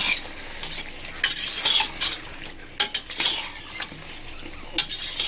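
A metal spoon stirring chunks of vegetables and chicken in masala in a cooking pot, with irregular scrapes and clinks against the pot over a light sizzle.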